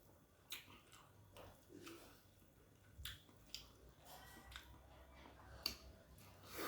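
Faint close-up chewing of a mouthful of food, with scattered small wet mouth clicks.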